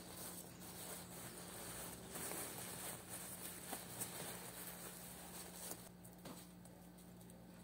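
Thin printed wrapping paper crinkling and rustling as hands fold it around a soft fabric-wrapped gift, with a few small clicks.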